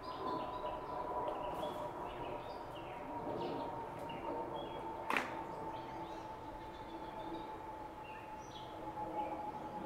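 Backyard ambience with several songbirds chirping and singing in short, scattered phrases over a steady faint hum. A single sharp click about five seconds in.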